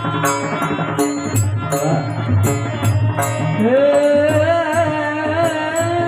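Devotional song: a hand drum and bright cymbal strikes keep a steady beat under sustained instrumental notes. About three and a half seconds in, a singer's voice glides up and holds one long wavering note.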